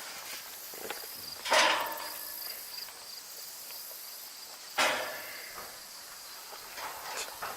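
Faint steady chirring of insects, broken twice by a sudden loud knock, about a second and a half in and again near five seconds in.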